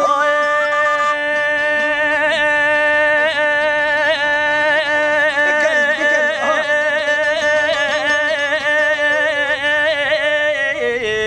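Kurdish traditional folk music: a long, wavering, ornamented melody line held over a steady low drone, with no beat. The melody steps down in pitch near the end.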